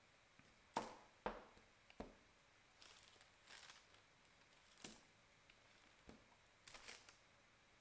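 Faint handling noises from a palette knife, biscuits and baking parchment: a few light clicks and soft scrapes and rustles as the knife takes chocolate fudge from a plastic tub and biscuits are moved on the paper.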